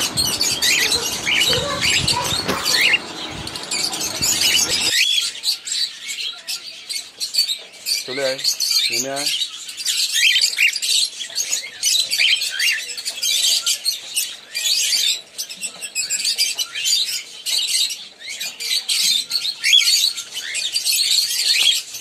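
A flock of cockatiels chirping and chattering continuously, many short high calls overlapping, with rapid clicking from beaks picking at grain in a hand. A low rumble underneath stops suddenly about five seconds in.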